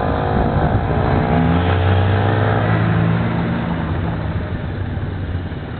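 Motorcycle engine revving up as it pulls away, then running at a steady pitch and fading.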